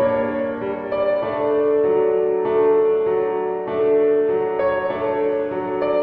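Background music: a piano playing slow, sustained notes that change about every second.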